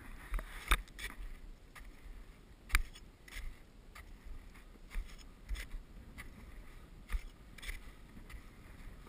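Footsteps of boots crunching in snow, slow and uneven, with a few sharper, louder crunches among them.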